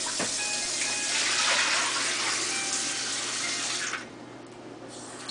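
Water running from a tap. It stops about four seconds in and comes back on about a second later.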